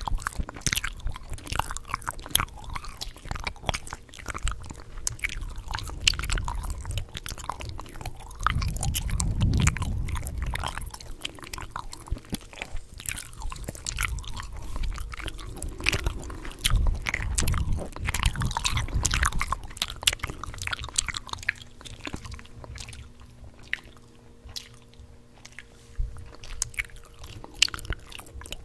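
Close-miked gum chewing: irregular wet smacks, clicks and snaps of the mouth and gum. There are stretches of low muffled rumble about a third of the way in and again past the middle.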